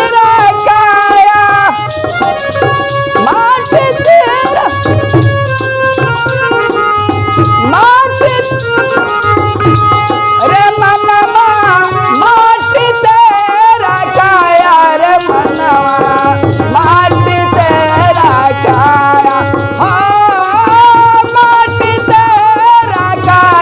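Music of a Hindi Christian devotional song (bhajan): a bending melody over a shaker rattling and a steady drum beat.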